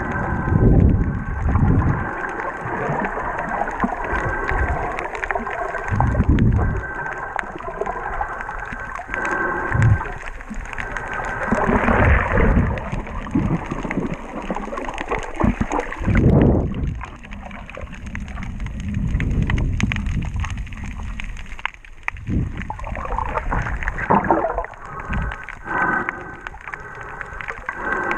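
Underwater sound picked up by a handheld camera in the water: a muffled, rushing water noise with irregular low surges every second or two as the camera moves through the water.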